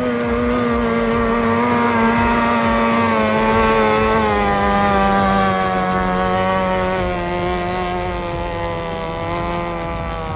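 Racing outboard engine of a tunnel-hull power boat running flat out, a loud high whine whose pitch drops slowly as the boat passes and draws away.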